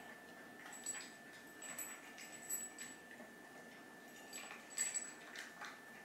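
A cat eating from a bowl: an irregular scatter of small crunches and clicks, busiest about two seconds in and again near the end.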